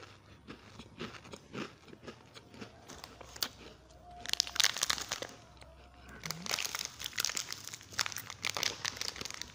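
Plastic snack-cake wrappers crinkling as they are handled and torn open. Crackling comes in a burst about halfway through, then runs fairly steadily through the last few seconds.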